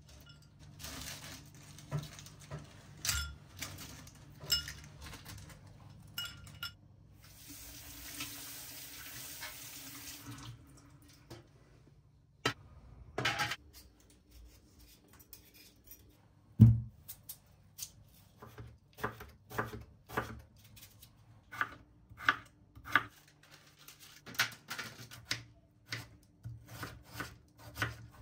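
Kitchen prep sounds. Light clinks early on, then a tap running for about two seconds, a peeler scraping potatoes, and one loud thump just past the middle. From there on a knife cuts potatoes into fries on a wooden cutting board, a steady series of sharp knocks.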